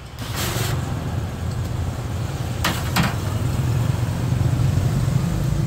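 A motor vehicle's engine running close by, a steady low rumble that swells about half a second in and then holds. A brief hiss comes near the start, and two sharp clicks come about three seconds in.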